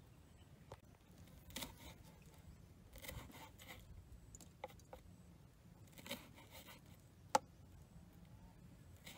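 Knife slicing red chili peppers on a wooden cutting board: faint, irregular taps and short scrapes of the blade on the board, with one sharper knock about seven seconds in.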